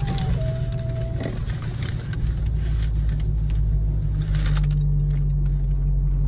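Low steady hum of the car running, heard inside the cabin, growing a little louder about two seconds in, with rustling of tissue paper and a cardboard box being handled.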